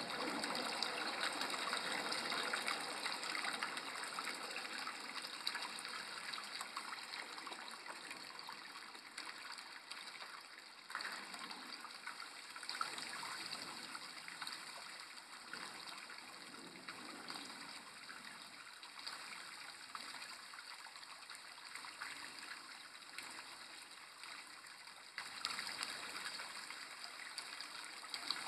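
Air bubbling up through koi-pond water from a submerged aeration hose: a steady bubbling and splashing as the bubbles break the surface. The sound jumps louder twice, about 11 and 25 seconds in.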